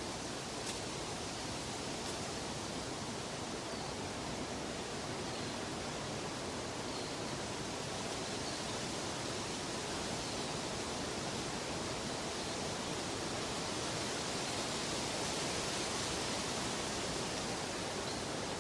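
Steady, even rushing noise with no distinct events, swelling slightly in loudness in the second half.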